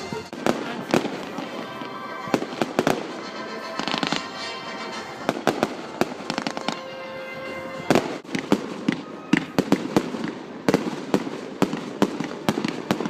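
Firework display: many sharp bangs and crackles from bursting shells, coming thick and fast in the second half.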